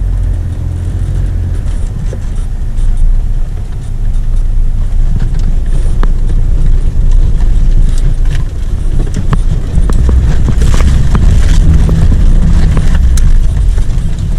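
Four-wheel-drive vehicle rumbling low and steady as it crawls down a rough bush track, with scattered knocks and rattles from the body and suspension over the bumps.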